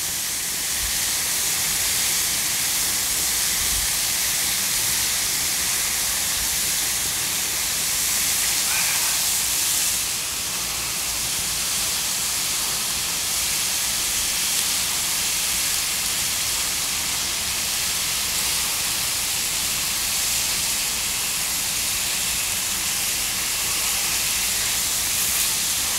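Slices of beef chuck flap and skirt steak sizzling on a hot grill pan, a steady hiss that sets in as the meat is laid down.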